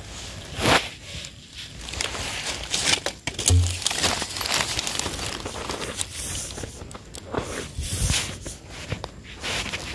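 A hand scraping and scooping dry, crumbly soil out of a small burrow: repeated rough, gritty scrapes and rustles of loose dirt. A brief dull bump about three and a half seconds in.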